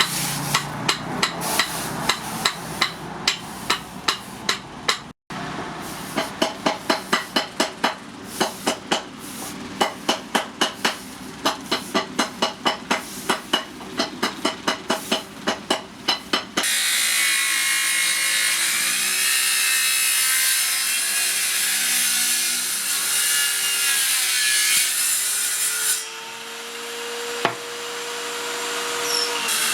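Hammer blows on steel, about three a second, in long runs broken by short pauses. Then, about 17 seconds in, an electric grinder starts at once: a steady hissing rasp with a motor whine that wavers in pitch.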